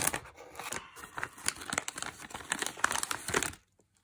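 Foil blind-bag pouch crinkling and being torn open by hand, a dense run of sharp crackles that stops about three and a half seconds in.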